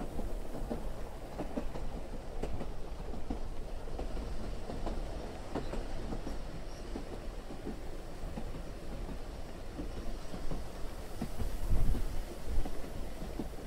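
Steady low rumbling noise with many irregular clacks and knocks throughout, swelling louder about twelve seconds in.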